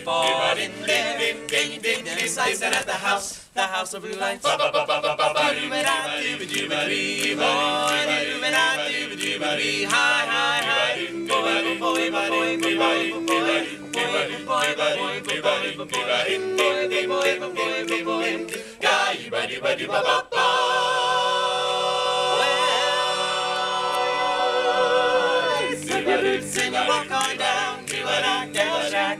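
Male a cappella group singing in close harmony, with a long held chord about two-thirds of the way through. Finger snaps keep a steady beat under the voices.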